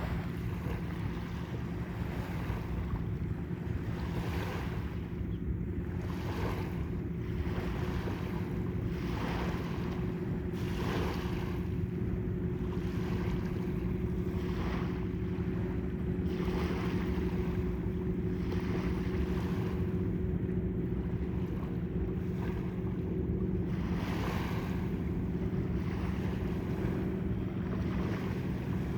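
Wind buffeting the microphone in gusts every second or two, over a steady low engine hum and the wash of water.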